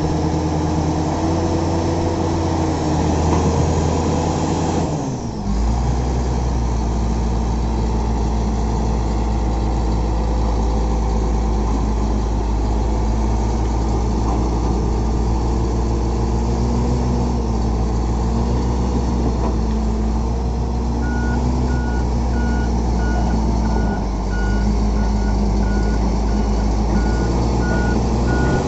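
Shantui SD20-5 bulldozer's diesel engine running steadily, its pitch dropping briefly about five seconds in. In the last several seconds a reversing alarm beeps about twice a second.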